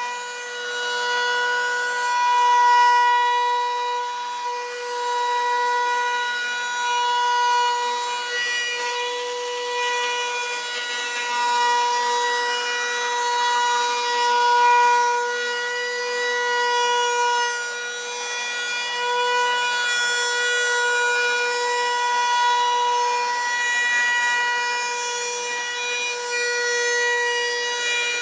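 Router spinning at full speed with a steady high whine, its bit cutting the binding channel into the edge of a wooden guitar body as the body is guided around it. The pitch holds steady while the loudness swells and dips as the cut bites.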